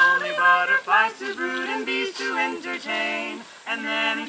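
A chorus of men's and women's voices singing a slow melody in long held notes, with a short break about three and a half seconds in.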